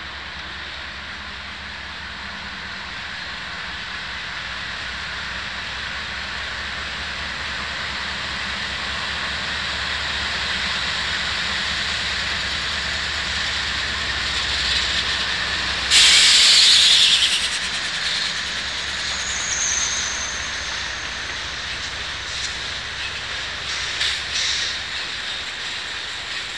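Freight train with GE diesel locomotives (two Dash 9s and an Evolution Series) approaching and passing, its engine drone and rail noise growing louder. The drone drops away about two-thirds of the way through, at a sudden loud hiss lasting about a second and a half. After that come hopper cars rolling by, their wheels clicking over rail joints.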